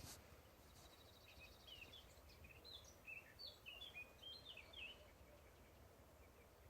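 A songbird singing faintly: a short fast trill about a second in, then a string of quick, varied chirping notes that stops about five seconds in. A single click comes right at the start.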